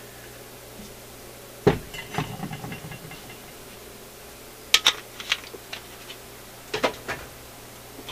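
Knocks and sharp metallic clinks as a metal turntable platter is handled and set down on a workbench: a thud about two seconds in with a short rattle after it, then two clusters of ringing clicks. A faint steady low hum lies underneath.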